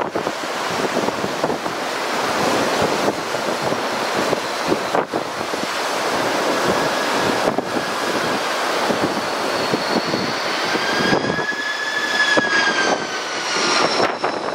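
Strong wind buffeting the microphone. About two-thirds of the way through, the whine of an Airbus A330-300's jet engines comes in as the airliner approaches to land, then dips slightly in pitch near the end as it passes.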